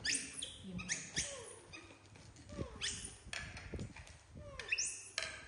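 Baby macaques calling while food is set out in front of them: about five high squeals that sweep sharply up in pitch, with lower calls that slide down in pitch between them.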